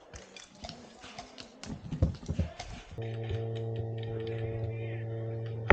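Irregular clicking and tapping for about three seconds, then a steady held chord of background music.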